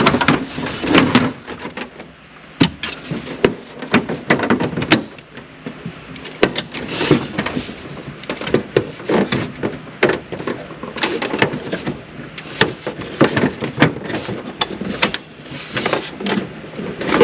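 Irregular clicks, taps and scraping of pliers and hands working a plastic sensor and its clip in a tight dashboard opening, trying to twist the ambient light sensor out.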